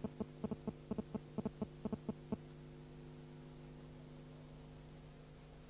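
Low, steady electrical hum, with a quick run of faint, irregular ticks over the first two and a half seconds; after that, only the hum.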